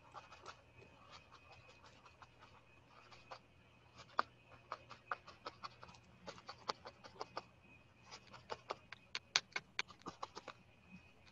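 Felting needle jabbing repeatedly into black wool roving over a foam pad: a run of light clicks, several a second, in two spells with a short pause between, as the fibres are tangled to fix the piece in place.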